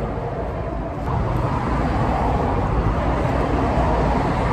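Road traffic noise: a steady low rumble of passing vehicles, getting louder about a second in.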